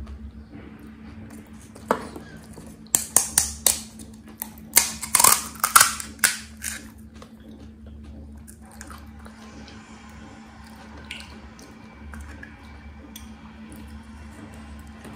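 Crisp fried pani puri shells crunching: a single sharp crack about two seconds in, then a run of loud crackling crunches lasting about four seconds, after which only soft handling sounds remain.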